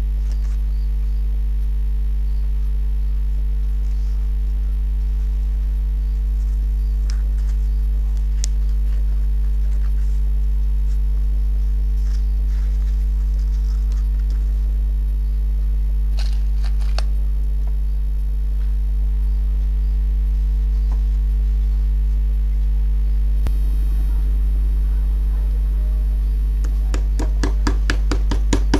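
Steady electrical mains hum with faint rustling of fabric and paper being handled. Near the end come a few quick, light hammer taps on a metal trouser hook being set into the waistband.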